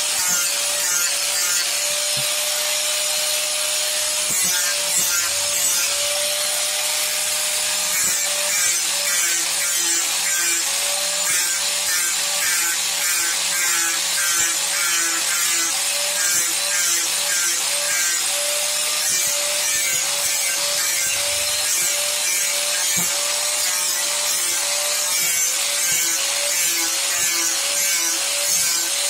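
Angle grinder with a sanding disc running steadily and rubbing over carved wood in rhythmic strokes, a little more than one a second.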